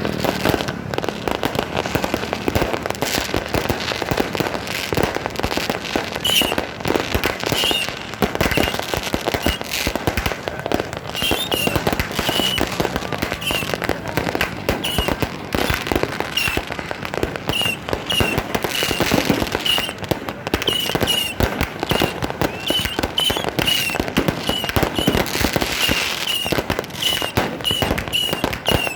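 Fireworks going off in a dense, continuous run of pops, crackles and bangs, with short high chirps repeating about once a second from about six seconds in.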